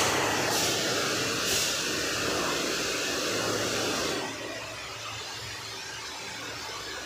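High-pressure washer jet hissing as it sprays water over a motorcycle, dropping to a softer hiss about four seconds in.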